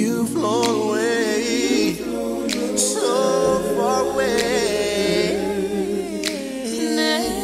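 Background music: a cappella singing by several voices, a higher lead line with vibrato over held lower harmony notes, with a few sharp clicks now and then.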